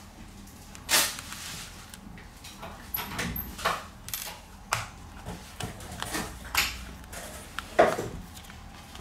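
Irregular small clicks, taps and knocks of a smartphone and its small parts being handled on a workbench during disassembly, starting with the SIM tray being pulled out. The loudest knocks come about a second in and near the end.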